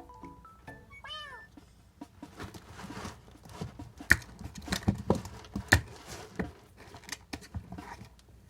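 A kitten meows once about a second in, a short call that rises and falls in pitch. It is followed by a run of soft scuffs and knocks, with two sharp taps as the loudest sounds.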